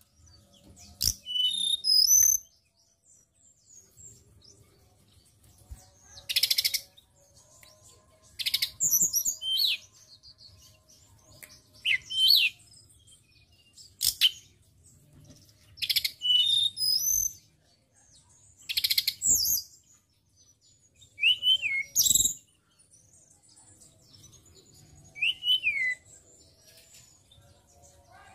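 Hill blue flycatcher (tledekan gunung) singing in short, high, whistled phrases every two to three seconds, some of them with harsh, scratchy notes.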